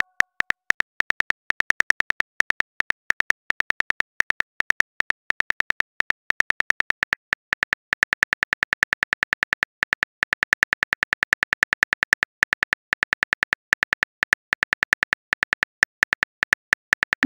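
Rapid keyboard tap clicks of a texting app's typing animation, several a second in a steady run as a message is typed.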